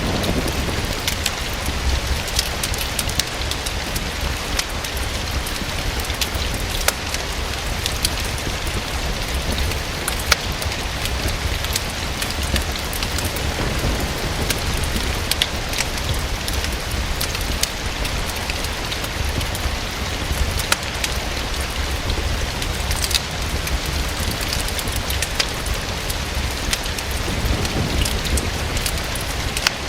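Steady rain falling, with scattered sharp ticks and crackles throughout and a faint low rumble that swells briefly near the end.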